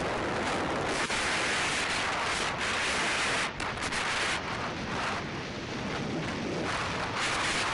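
Wind rushing over a helmet-mounted camera's microphone during a fast ski run, mixed with skis scraping over packed snow. The rush drops out briefly about three and a half seconds in.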